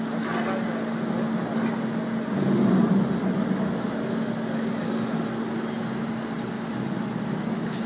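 CARER electric forklift trucks running: a steady electric motor hum with a faint high whine, swelling louder for about a second a little over two seconds in.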